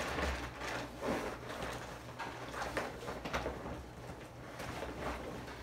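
Irregular rustling and scuffing of things being handled and moved about, a few sharper rubs in the first second and a half, over a steady low hum.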